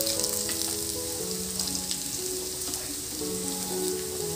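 Chicken pieces frying and sizzling in a non-stick pan while a spatula stirs them, with a few short scrapes. Soft background music plays a slow melody of held notes.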